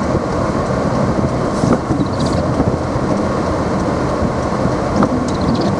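Steady road and engine noise inside a car's cabin while driving on snowy town streets, with a few faint short high-pitched squeaks.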